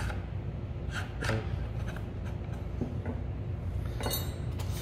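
Handling noise from a die-cast aluminum light back box and its metal mounting brackets being picked up and set down: a few soft knocks, then a brief scraping rattle near the end, over a steady low hum.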